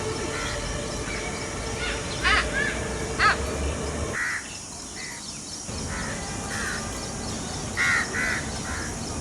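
Peacock giving short, loud, harsh calls: two about two and three seconds in, a pair near the end, and softer calls between. A low rumble and hum under the first half stop about four seconds in.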